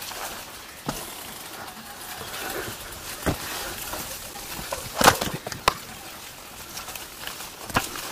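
Bicycle jolting along a rough, overgrown track: scattered knocks and rattles over a steady rustle, the loudest cluster about five seconds in.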